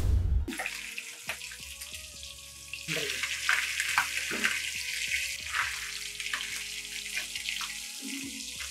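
Sardines shallow-frying in hot oil on a cast-iron griddle: a steady sizzle, with a few short scrapes as a steel spatula turns the fish around the middle. A brief low thump at the very start.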